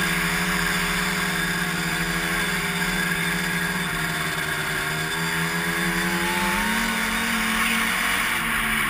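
1989 Ski-Doo Mach 1 snowmobile's 583 Rotax two-stroke twin running steadily while under way. The engine note sags a little around the middle and climbs again near the end.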